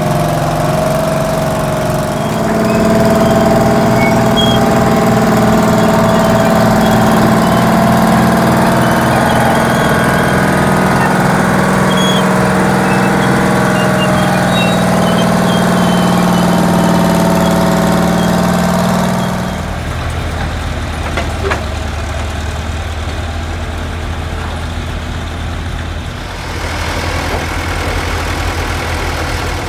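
Engine of a heavy old construction machine running steadily, swelling louder about two seconds in. Near two-thirds through it gives way abruptly to a quieter, deeper engine drone.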